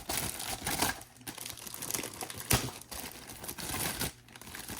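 Plastic packaging crinkling and rustling as a car stereo head unit is unwrapped from its box, with a few sharp clicks of handling.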